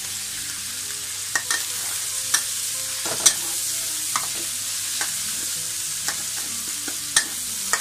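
Minced pork and fried tofu sizzling in hot oil in a steel wok, with a steady hiss. A metal spatula clinks and scrapes sharply against the pan several times at irregular moments as it is stir-fried.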